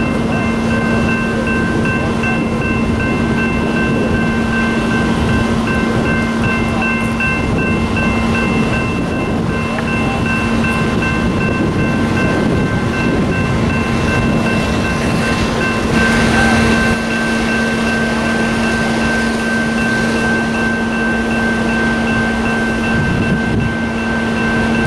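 Heavy engine machinery running steadily: a low hum with several constant whining tones over a rushing hiss, the hiss briefly brightening about sixteen seconds in.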